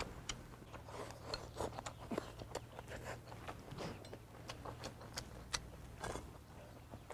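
Close-up eating sounds: slurping noodles and chewing, many short wet clicks and smacks, then a swig from a glass bottle near the end.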